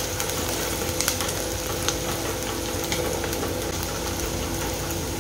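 Chopped onions and green chillies sizzling steadily in hot oil in an aluminium pot, stirred with a wooden spatula, with a few light scraping clicks of the spatula against the pot.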